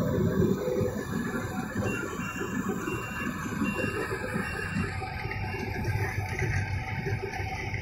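Tracked combine harvester running at a distance while cutting paddy: a steady engine and threshing-machinery noise.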